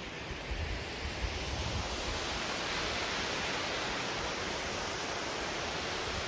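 Waterfall's water falling and splashing: a steady rushing that grows a little louder after about two seconds.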